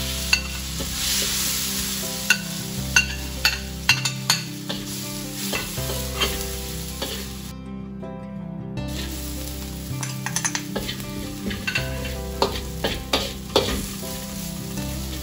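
Spiced paste of blended garlic, shallots and bird's eye chillies sizzling in hot oil in a wok, stirred with a metal spatula that scrapes and clacks against the wok several times. The sizzling breaks off for about a second midway, then resumes.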